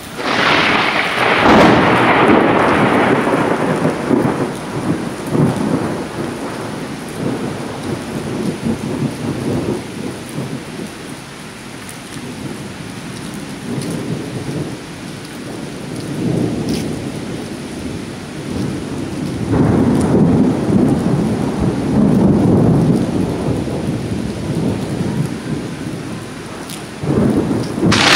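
Thunder in a heavy thunderstorm with steady rain. A loud thunderclap right at the start fades into a long rolling rumble, a second long rumble swells up about two-thirds of the way through, and another sudden crack comes near the end.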